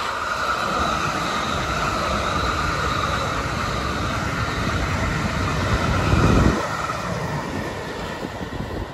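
A South Western Railway electric multiple unit passes at speed, with steady wheel-on-rail noise and a steady higher tone over it. A loud low rumble swells about six seconds in and cuts off suddenly.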